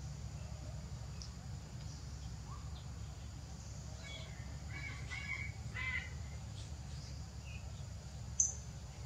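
A short run of harsh calls from a bird or animal about four to six seconds in, over a steady low outdoor rumble, with a single sharp click near the end.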